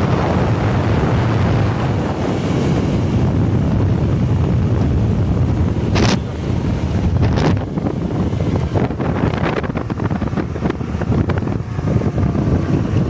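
Heavy wind buffeting the microphone of a camera riding on a moving vehicle, a loud steady low rumble, with a few short knocks in the second half, the first about halfway through.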